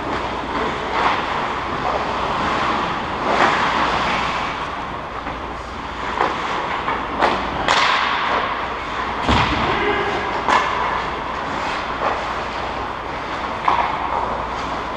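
Ice hockey play in an echoing indoor rink: skates scraping across the ice over a steady low hum, with scattered sharp cracks of sticks and pucks, several close together in the middle and one heavier thud among them.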